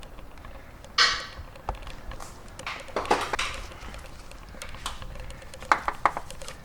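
Scattered metallic clinks, clanks and scrapes of hand tools on the starter's mount bolts, with a sharp clank about a second in and a short clatter around three seconds in.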